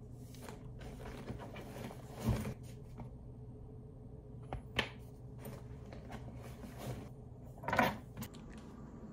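Things being handled and set down while packing up: rustling with a few sharp knocks, the loudest about two, five and eight seconds in, over a low steady hum of room tone.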